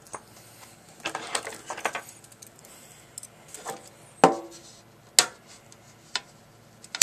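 Metal collector's tin being handled and pried open: scraping and rattling, then a few sharp metallic clanks, the two loudest ringing briefly.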